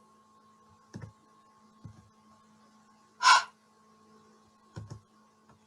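A teacher voicing the pure phonics sound for the letter H: a single short, breathy 'h' puff with no vowel after it.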